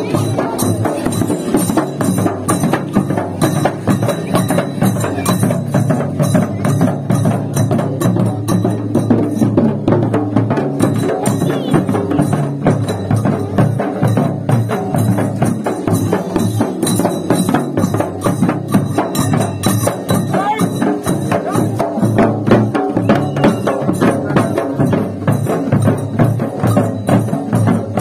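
Barrel drums beaten with sticks in a fast, steady, driving rhythm of dense repeated strikes.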